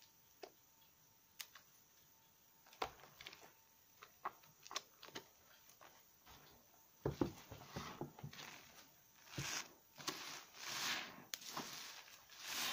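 Wet squishing and squelching of hands lathering a soaked bar of conifer soap in a basin of soapy water. At first there are only sparse small wet clicks, then denser sloshing and squelching from about seven seconds in. Near the end come longer foamy squishes as a lathered foam sponge is squeezed.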